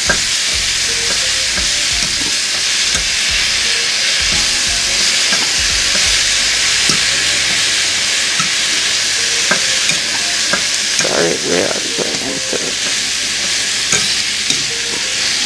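Kale and mushrooms sizzling steadily in a hot stainless steel frying pan as a spoon stirs them, with scattered scrapes and light clicks of the spoon against the pan.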